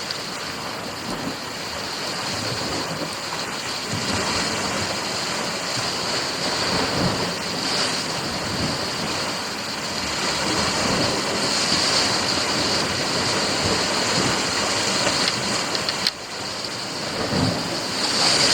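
Sea surf washing against a rocky shore, a steady rushing that swells and eases, with a brief drop about 16 seconds in.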